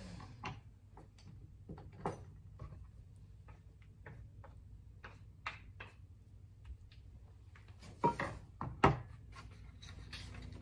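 Scattered light clicks and knocks of plates and utensils being handled on a kitchen counter, with two louder knocks about eight and nine seconds in.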